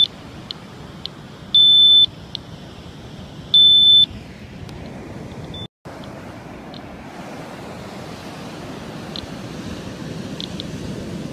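Radiation detector (Geiger counter) alarm beeping: a loud, steady high beep about half a second long, twice about two seconds apart, with short chirps at the same pitch in between. This is its over-threshold alarm, set at three times background. After a brief dropout about halfway through, a steady surf and wind hiss with a few more short chirps.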